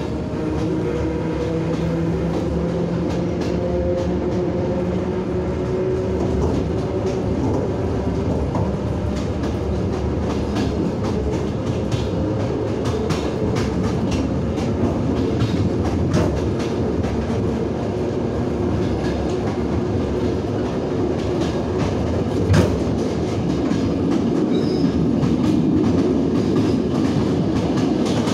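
Train running noise heard from inside a moving carriage: a steady rumble with wheels clicking over rail joints. Near the end an oncoming electric commuter train passes close alongside and the noise swells into a louder rush.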